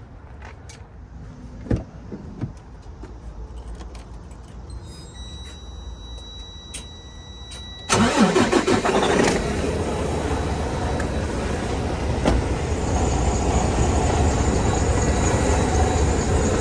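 A few clicks and a steady electronic warning tone, then about eight seconds in the Freightliner Cascadia's diesel engine cranks and starts and runs steadily at idle, building air pressure in the drained air system.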